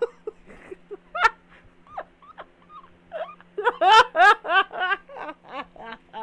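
A person laughing hard without words: scattered short high-pitched gasps, then a fast run of rising, wheezing bursts of laughter from about three and a half seconds in.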